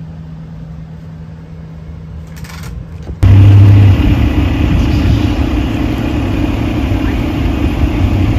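Vehicle engine idling: a low steady hum, then after a sudden cut about three seconds in, a much louder steady low rumble.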